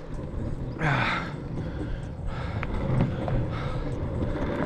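Longboard wheels rolling over pavement with a steady low rumble, and the rider breathing hard from pushing, with heavy exhales about every second and a quarter.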